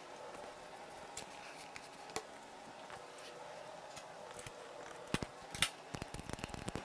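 Faint clicks and taps of hand tools being picked up and handled, with a cluster of sharper clicks about five seconds in as work starts on the cylinder's valve cover, over a faint steady hum.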